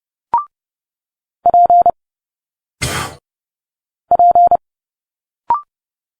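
Morse code sidetone of about 700 Hz keying two single letters at 30 words per minute, one about a second and a half in and one about four seconds in. Between them come short spoken letter sounds: a brief clipped sound near the start and near the end, and a hissed consonant sound in the middle.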